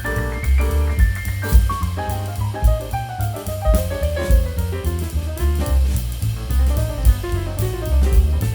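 Background music: upbeat jazzy instrumental with drum kit, a prominent bass line and a melody that steps up and down.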